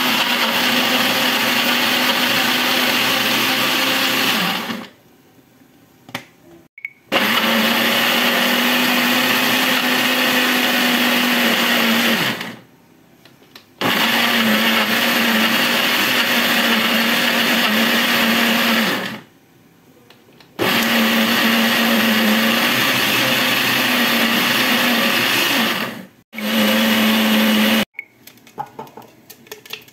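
Countertop electric blender grinding red chilies, shallots, lemongrass and other spices into a paste. It is run in five bursts of about five seconds with short pauses between, the last one brief, each starting and stopping abruptly.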